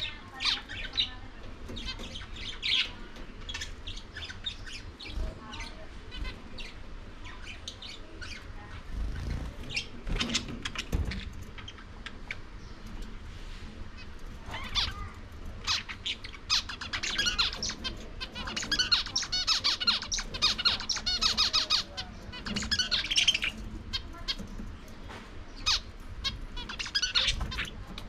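Budgerigars chirping and chattering in quick, high calls, busiest about two-thirds of the way through.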